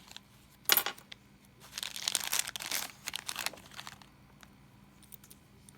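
Packaging crinkling as it is handled: a sharp crackle about a second in, then about two seconds of crinkling and rustling, with a few light clicks near the end.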